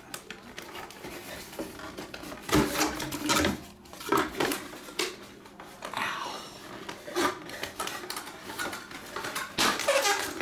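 Trading-card box packaging being handled: plastic wrap crinkling and cardboard clattering in irregular bursts, loudest about two and a half to three and a half seconds in and again near the end.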